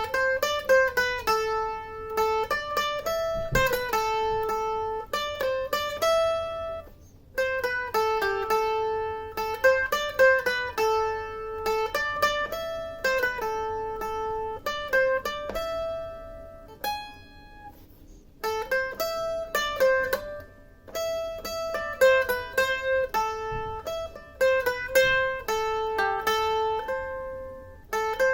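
Handmade Les Paul-style solid-body mandolin being picked: a single-note melody of clear, quick notes in repeating phrases, with brief pauses about seven seconds in and around seventeen seconds in.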